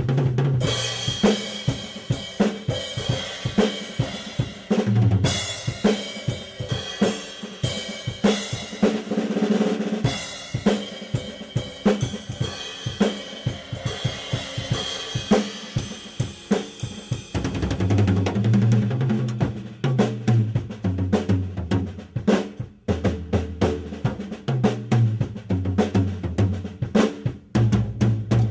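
Acoustic drum kit playing a busy funk groove: snare, bass drum, hi-hat and Sabian cymbals struck in a dense, steady rhythm, with a brief dip about three-quarters of the way through.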